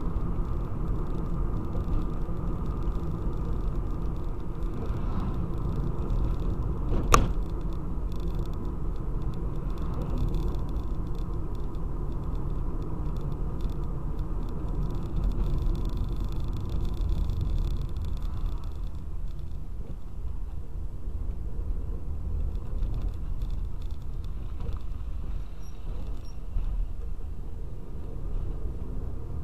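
Steady low rumble of engine and road noise inside a moving car's cabin, with one sharp knock about seven seconds in.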